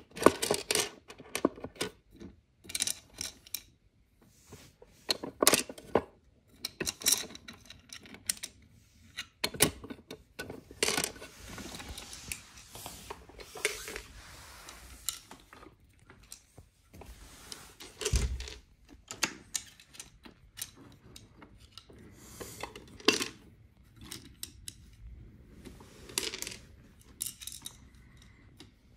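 Irregular clicks and clatter of small hard toy pieces being handled and set down, with a few seconds of continuous rattling in the middle and a single dull thump a little past the middle.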